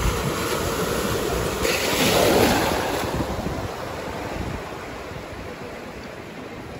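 Sea surf washing onto the beach: a wave breaks and rushes in about two seconds in, then fades back, with wind on the microphone.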